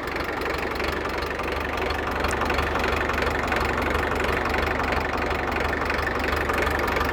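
1963 International TD5 crawler bulldozer's engine running steadily.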